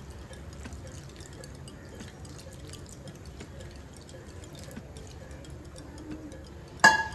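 Milk being poured from a bowl into a steel pot of cooked rice, a steady pouring and dripping of liquid. Near the end comes a single sharp clink with a brief ring.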